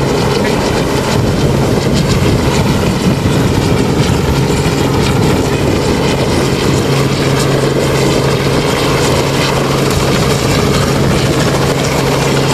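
Helicopter hovering: a loud, steady rotor and engine drone with a constant low hum.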